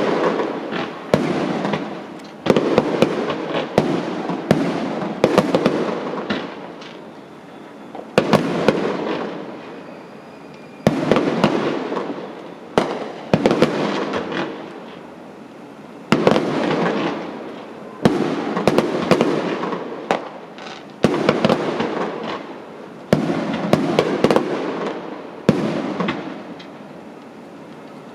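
Fireworks display: aerial shells bursting in a rapid series, a sharp bang every one to three seconds, each fading away over a second or so before the next.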